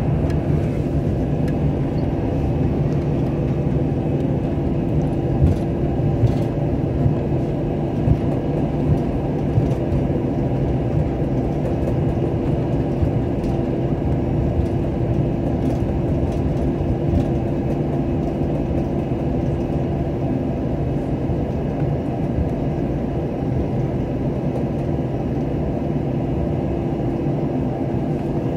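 Airbus A321 cabin noise while taxiing: a steady hum from the engines at idle, with a couple of held tones. A few light knocks sound in the first ten seconds.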